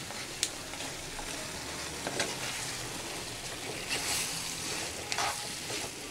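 Penne in a creamy spinach pesto sauce sizzling in a frying pan on the stove while a spatula stirs it. A few short scraping strokes stand out over the steady sizzle.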